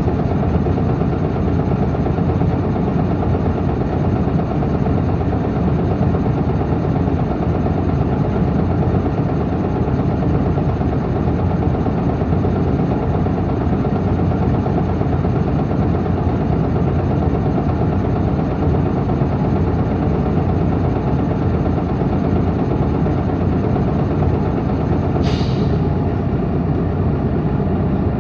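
Isuzu Erga city bus (PKG-LV234L2) with its six-cylinder diesel running, heard from the rear seats over the engine. The drone holds steady, with a short hiss about 25 seconds in. This unit is singled out for an abnormal running noise.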